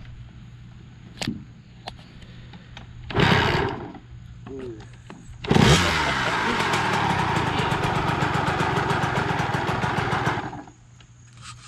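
Kawasaki KX100 two-stroke single-cylinder dirt bike engine on its first start after a rebuild: a short burst about three seconds in, then it catches about five and a half seconds in, runs with a fast, even firing rhythm for about five seconds and cuts out. It sounds weird, which the owners put down to fresh oil not yet having worked through the engine.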